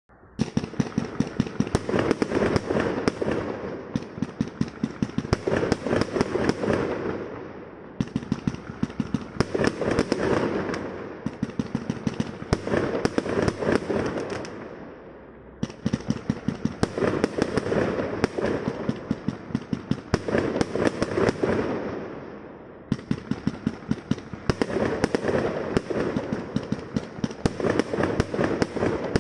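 Firecrackers going off in long rapid rattles of sharp pops, coming in waves every few seconds that swell and ease off without stopping.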